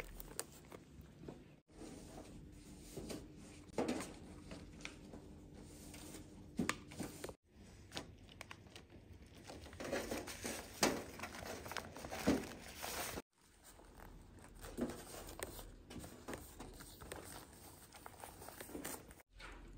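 Crinkling and rustling handling noises with scattered light knocks as hands work with the colored sticky rice and its wrapping. The sound breaks off abruptly three times, as separate short clips.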